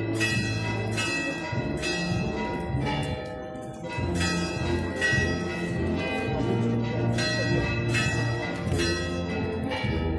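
Church bells pealing: several bells struck in quick, uneven succession, about two strikes a second, each left ringing.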